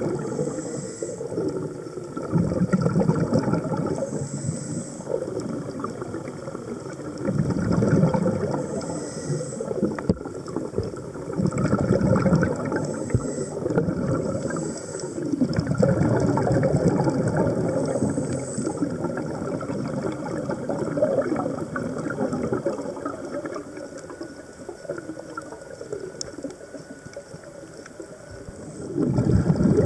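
Scuba diver's regulator breathing heard underwater: a faint hiss on each inhale, then a rumbling, gurgling rush of exhaled bubbles, repeating every four to five seconds.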